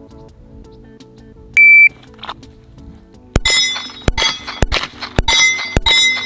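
A shot timer beeps once about one and a half seconds in. From about three seconds in comes a fast string of pistol shots, several in quick pairs, with steel targets ringing after the hits. Music plays low underneath.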